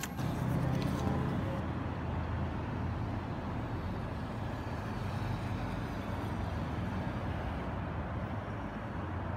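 City street traffic: a steady low rumble of cars passing by.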